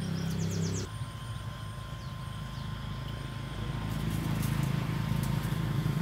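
An engine running steadily, its note changing about a second in and growing louder in the second half.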